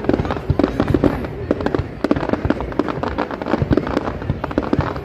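Aerial fireworks going off in a rapid, continuous barrage of bangs and crackles.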